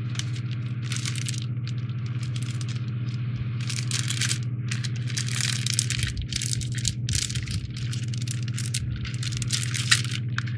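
Plastic parts bag crinkling and rustling in the hands as it is worked open, with the plastic kit pieces inside rattling and one sharp click near the end. A steady low hum runs underneath.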